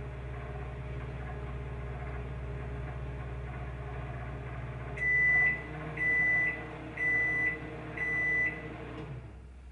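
Microwave oven running with a steady hum while its timer counts down, then four high-pitched beeps about a second apart signalling the end of the cook cycle; the hum stops just after the last beep.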